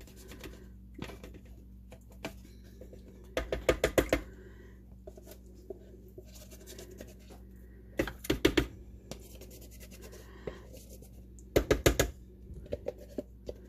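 A utensil scraping and tapping plain Greek yogurt out of its container, in three short bursts of rapid knocks with quieter scraping between.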